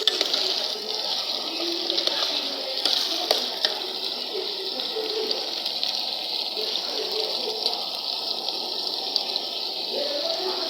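Chopped vegetables and meat sizzling steadily in a frying pan, with a few light clicks from the stirring spoon.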